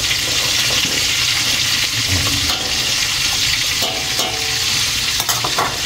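Coconut milk boiling hard in a stainless steel pot, with a spoon stirring through it: a steady bubbling hiss, with a few light clicks near the end.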